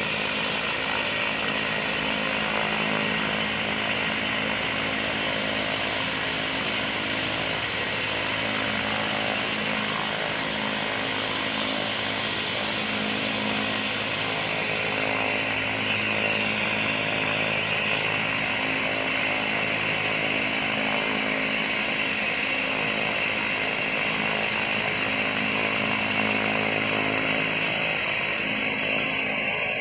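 Cessna Grand Caravan turboprop engine starting: a continuous high turbine whine that shifts in pitch about halfway through and grows slightly louder as the propeller comes up to speed, over a steady low hum.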